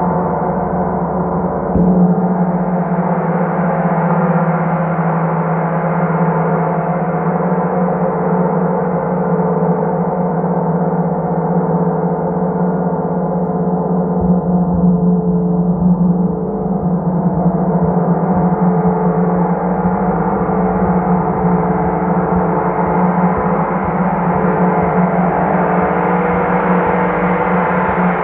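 Large gong played with a soft felt mallet: a dense, sustained wash of many overlapping tones, strongest in a deep hum. Soft strikes about two seconds in and again around fourteen seconds in keep it swelling, its shimmer growing and easing.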